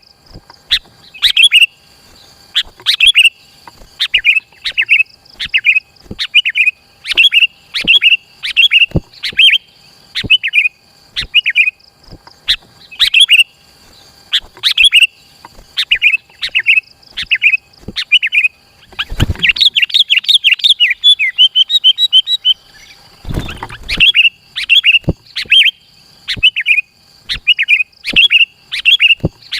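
Sooty-headed bulbul singing loud, short, repeated phrases less than a second apart. In the middle it breaks into a faster run of chattering notes. Two low thuds come in, one just before the chattering and one just after it.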